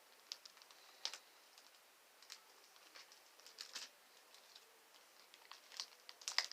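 Faint, scattered light clicks and crinkles of a plastic zip-top bag being handled, growing denser and louder near the end.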